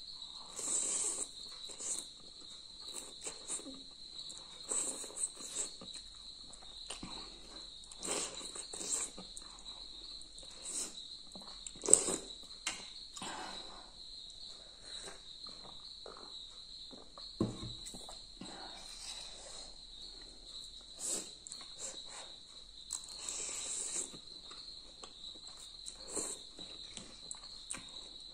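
Noodle soup being eaten: irregular slurps and chewing with fork and spoon clicking against the bowl, and one sharp clink about twelve seconds in. Underneath is a steady high-pitched whine.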